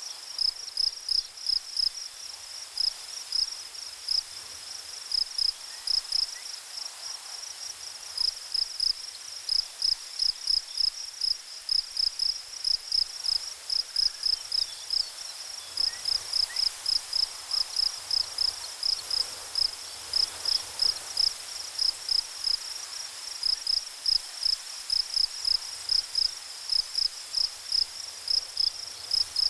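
A cricket chirping: short, high chirps repeated a few times a second in uneven runs with brief pauses, over a faint background hiss.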